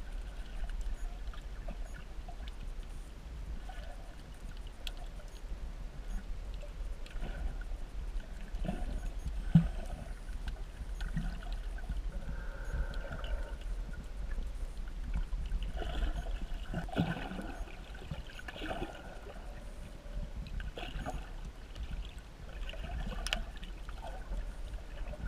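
Underwater ambience picked up by a GoPro in its waterproof housing: a steady low rumble with faint crackles and muffled swishes of water, and one sharp knock about ten seconds in.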